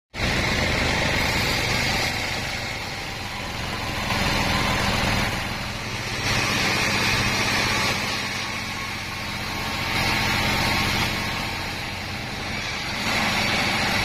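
Large sawmill band saw running and ripping through a wadang timber beam. The cutting noise swells and eases several times over the machine's steady low hum.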